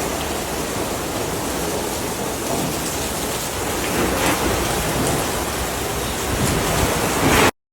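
Heavy rain pouring down steadily in a violent storm, cutting off abruptly near the end.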